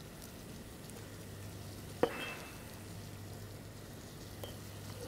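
Quiet room tone with a steady low electrical hum, broken about two seconds in by one short, ringing clink of a kitchen utensil against a hard surface.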